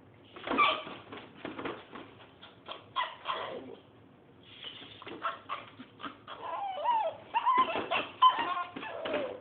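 A dog whining and yelping in a string of short, uneven calls, the pitch wavering up and down, most busily in the last few seconds.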